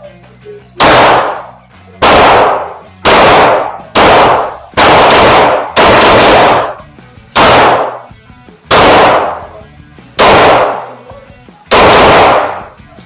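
Compact 9mm hammer-fired pistol fired in a slow string, about ten shots roughly a second apart, each with a long echoing tail.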